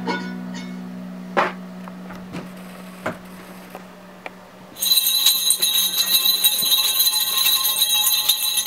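A held low note fades away, broken by a couple of sharp clicks, then bells start jingling steadily about halfway through.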